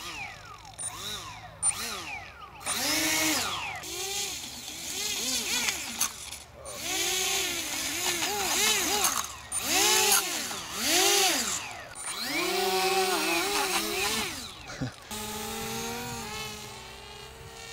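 Small electric RC plane motors and propellers whining, the pitch repeatedly rising and falling as the throttle is blipped up and down, then settling into a steadier whine about fifteen seconds in.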